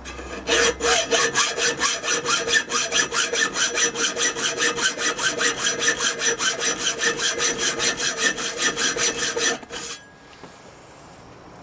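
Hacksaw cutting through 1-inch perforated 14-gauge steel square tubing in fast, even strokes, about four a second. The steel rasps with a steady ringing tone under each stroke. The sawing stops a little before the end.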